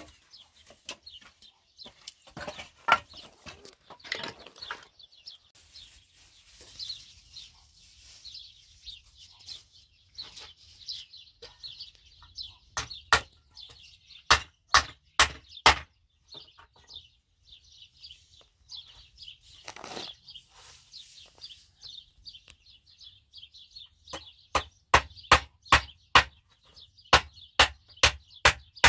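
Sharp blows of a hand tool on wooden boards: a run of about six strikes midway and about ten more near the end, a couple of strikes a second. Small birds chirp throughout.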